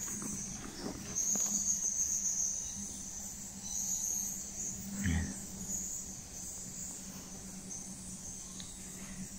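Insects in the surrounding forest make a steady high-pitched drone that swells and fades in waves. There is a single dull thump about five seconds in.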